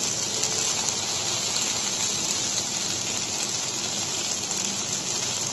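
Chopped vegetables (shredded cabbage, tomato, green chilli, coriander) sizzling steadily in hot oil in a kadhai.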